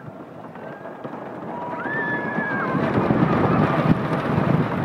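Wooden roller coaster train rumbling down a drop, with wind buffeting the microphone, growing steadily louder through the first three seconds. A high held cry rises and falls about two seconds in.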